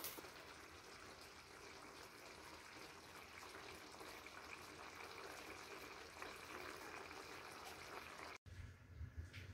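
Chicken, broccoli and carrot stir-fry simmering in its sauce in a wok: a faint, steady hiss. There is a light knock of tongs against the pan at the very start, and the sound cuts off suddenly near the end.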